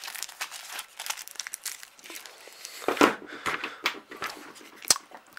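Sticky tape and sandpaper crinkling and crackling as they are handled and pressed down onto a plastic slot-car track, with many small clicks and a louder rustle about three seconds in.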